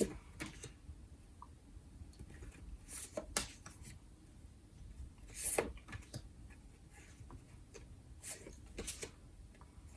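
Photo prints being handled: a handful of brief paper rustles and taps, spread out over quiet room tone, the loudest at the very start and about halfway through.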